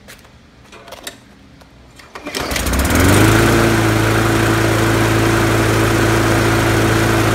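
Briggs & Stratton 300E series 125cc single-cylinder push-mower engine starting about two seconds in, quickly coming up to speed and then running steadily at a constant speed, on its first run since being swapped onto the mower deck.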